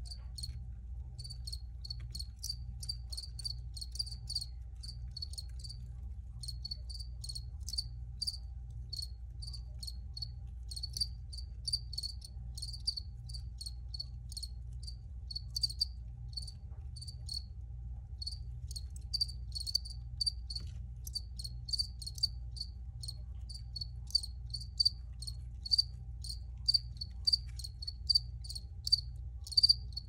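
Crickets chirping: short, high chirps repeated steadily about two to three times a second.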